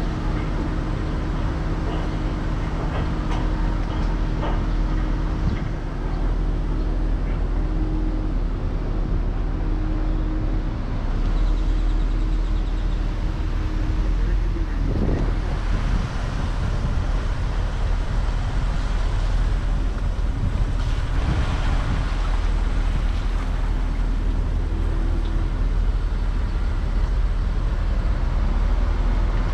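A vehicle's engine running at low speed with a steady low hum as it rolls forward slowly.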